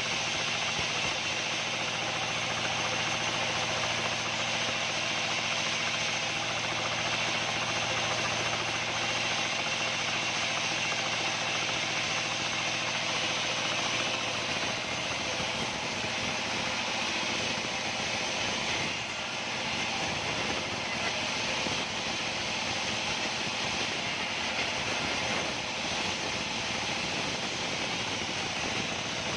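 Locally built size-28 wood band saw running steadily. Partway through, its steady low hum gives way to a rougher, more uneven noise.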